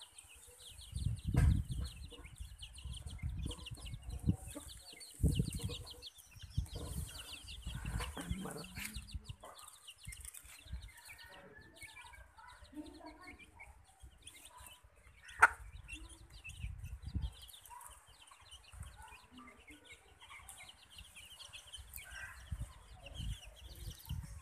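Chicks peeping constantly in quick high chirps while a hen clucks to her brood. Low rumbling thumps come and go in the first half, and there is one sharp click about fifteen seconds in.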